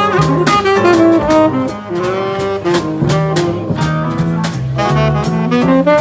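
A small jazz combo playing: a horn melody over a bass line that steps from note to note, with drums keeping time.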